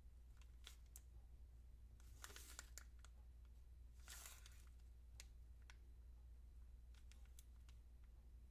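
Faint kitchen ambience: scattered small clicks and taps, with two brief rustles about two and four seconds in, over a low steady hum.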